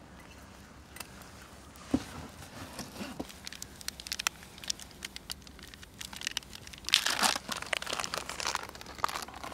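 Crinkling of a coffee packet being handled and opened by hand, in scattered crackles with a louder burst of crinkling about seven seconds in.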